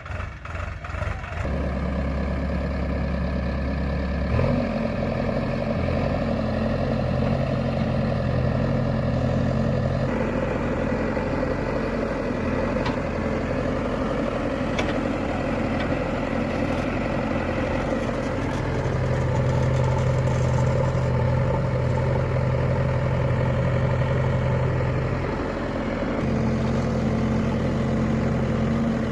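A vehicle engine idling steadily. Its note changes a few times: a step up about four seconds in, and stronger stretches around ten and nineteen seconds.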